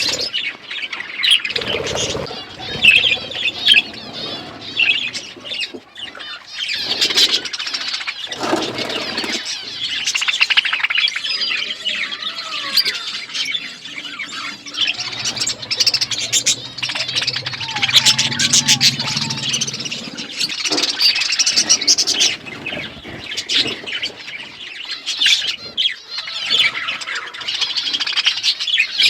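Budgerigars chattering and chirping continuously, with many short squawks and clicks mixed in.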